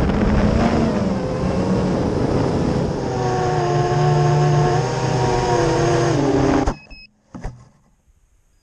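Five-inch FPV quadcopter's brushless motors and 5042 propellers buzzing in flight, with the pitch wavering and then sagging. The motors cut off abruptly about two-thirds of the way through as the quad comes down in the grass, followed by a couple of short knocks.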